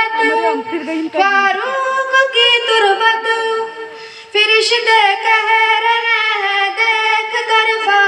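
A tarana sung by a high voice in long held, melodic phrases, with a short break about four seconds in before the next phrase comes in loudly.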